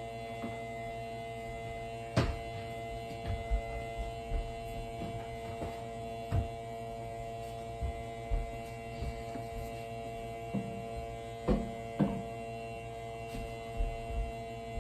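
A steady hum made of several tones, with scattered soft knocks and thumps every second or two.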